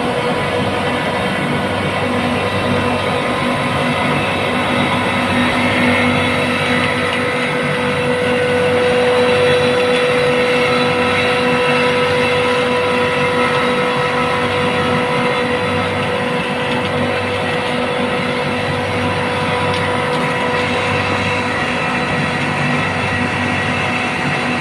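Trane chiller compressor running, with a steady whine of several tones over a dense rumble, rising a little about a third of the way in. This is the abnormal noise at the compressor's discharge valve side that comes with gas bypassing.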